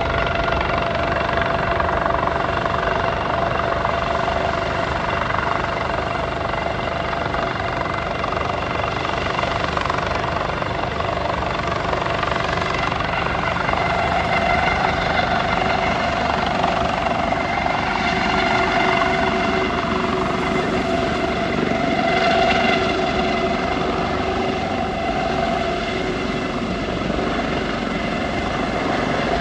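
Air-ambulance helicopter flying in low and hovering: a steady rotor beat under a high turbine whine.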